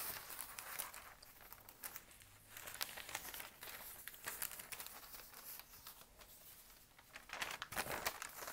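Thin hanshi paper sheets rustling and crinkling as a hand lifts and turns them, with a louder flurry of crackle near the end.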